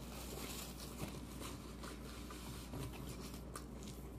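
Person chewing a mouthful of fried fish sandwich: faint soft mouth clicks and smacks over a low steady room hum.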